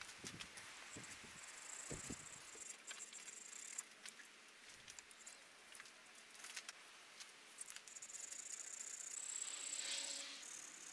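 Faint scratchy rasping and light ticks of a hand file worked over a buffalo horn piece clamped in a vise; the rasping swells near the end.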